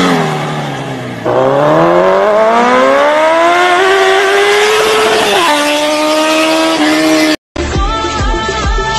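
Revving vehicle engine, likely a dubbed sound effect: the pitch dips for about a second, climbs steadily for about four seconds, then drops and holds before cutting off about seven and a half seconds in. After the cut, a wavering cry sounds over low thumps.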